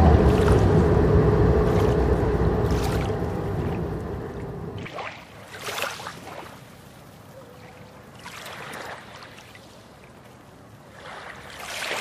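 A car engine running, fading away over the first few seconds as the car drives off, then water lapping, with three swells of waves washing in about three seconds apart.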